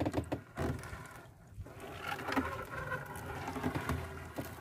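Wet nylon triple net being hauled hand over hand into a boat, water dripping and pattering off the mesh.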